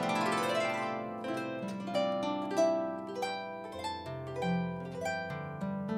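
Concert harp played solo: an upward glissando runs up into the high strings at the very start, then plucked melody notes ring and overlap over low bass notes that change every second or so.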